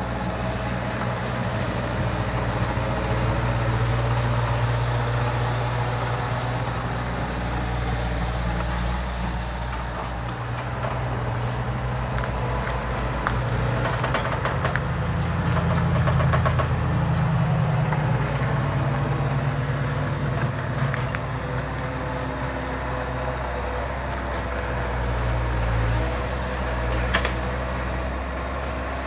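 Bobcat skid steer engine running steadily as the machine works, with the engine climbing in pitch and getting louder for a few seconds around the middle under load.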